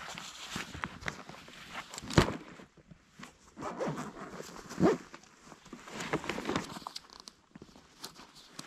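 A nylon backpack being handled and packed: rustling fabric, a zipper being pulled and scattered knocks, the sharpest about two seconds in and another near five seconds.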